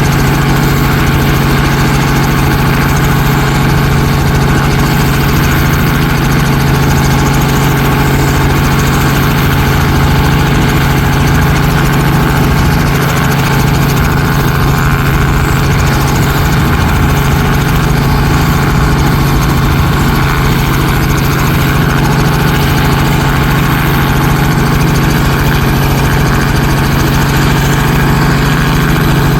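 A loud engine running steadily at idle, with a strong unchanging hum and no change in speed.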